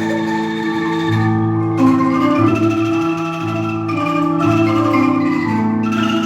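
Angklung ensemble, tuned bamboo tubes shaken to make trembling held notes, playing a march tune in chords over a low bass line that changes note about every second.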